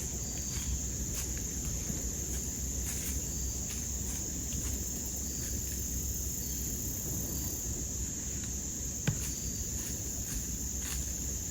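Steady high-pitched chorus of insects, crickets or katydids, over a low background rumble, with one sharp click about nine seconds in.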